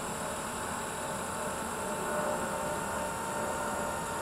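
Blade 230S V2 electric RC helicopter running on its pad before lift-off: a steady brushless-motor whine with rotor hiss.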